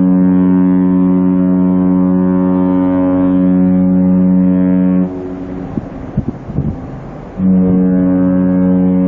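Cruise ship's horn sounding two long blasts, each a steady pitched tone with many overtones; the first ends about five seconds in and the second starts about two seconds later.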